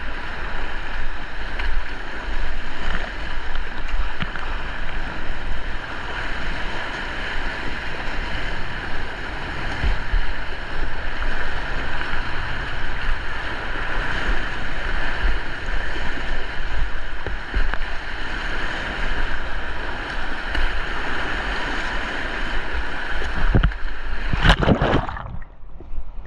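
Rushing river water around a kayak on a white-water run, with wind buffeting the microphone. A loud burst comes near the end, after which the sound turns dull and muffled.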